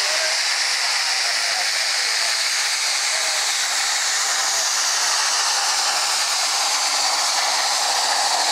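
Farm tractor's diesel engine running flat out under heavy load as it drags a pulling sled, a loud, steady noise with a high whine that sinks slightly in pitch as the pull goes on.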